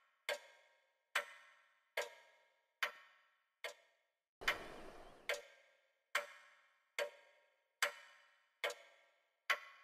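Clock-like ticking over the credits: even, sharp ticks a little more than one a second, each ringing briefly as it fades. A short rushing noise lasting about a second comes about four and a half seconds in.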